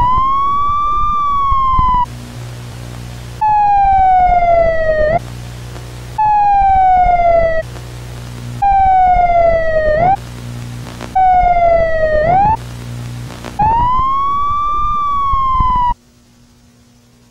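Emergency-vehicle siren wailing, its pitch rising then falling slowly, chopped up five times by a second or so of loud tape static with a low hum. The siren cuts off sharply near the end, leaving only a faint hum.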